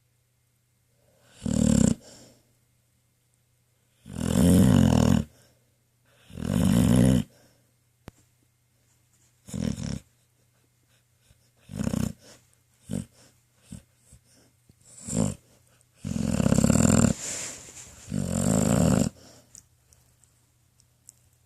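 Pit bull snoring in her sleep while dreaming: about ten snores at uneven gaps, some long and loud, others short.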